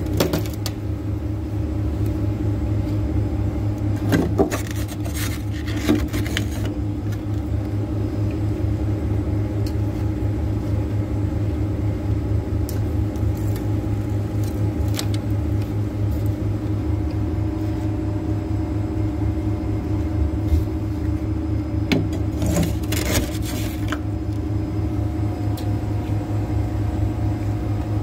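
Freezer running with a steady low hum, its compressor and fan on. Two brief clusters of clicks come through about four seconds in and again about twenty-two seconds in.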